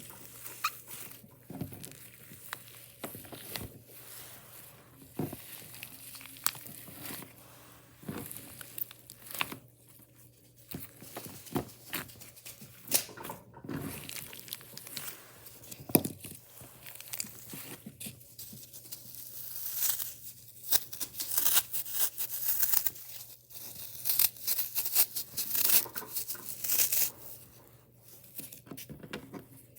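Slime being squished and stretched by hand, giving irregular crackles and sharp pops, thickest in a busy stretch in the second half.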